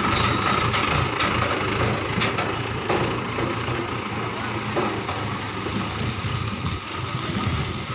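Mahindra 575 DI tractor's diesel engine running as it pulls a tipper trolley away, growing slightly fainter as it moves off. A few sharp knocks come in the first three seconds.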